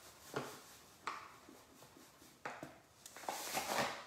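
Granulated sugar poured from a measuring cup into a bowl, in a few short pours about a second apart and then a longer pour near the end.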